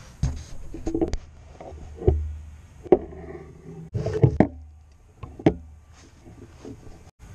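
Irregular knocks and thumps of a camera and its bicycle-handlebar mount being handled and moved, about eight bumps over several seconds with the sharpest near the middle.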